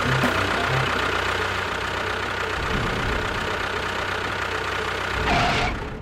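A motor running steadily, with a louder surge shortly before the end.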